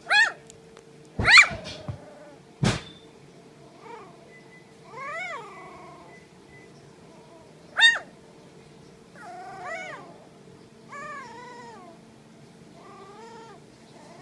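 Four-week-old puppies whining and yelping: about nine separate high cries that rise and fall in pitch, the loudest near the start and again about two-thirds of the way through. There is one sharp click a few seconds in.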